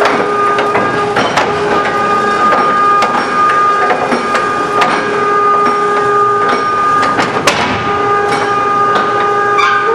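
Baler in-feed conveyor running on its 7.5 horsepower three-phase electric motor. A steady whine of several held tones runs under frequent irregular clanks and rattles.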